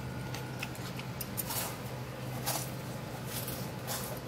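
A few faint, scattered clicks and soft smacks over a steady low hum.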